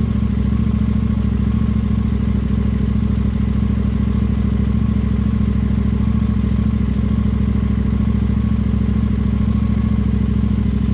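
KTM 890 Duke R's parallel-twin engine idling steadily through an Akrapovic slip-on exhaust.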